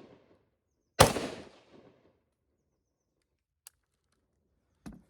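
A single rifle shot about a second in, its report echoing and fading over about a second, following the dying tail of a shot just before. A faint click and a soft knock come near the end.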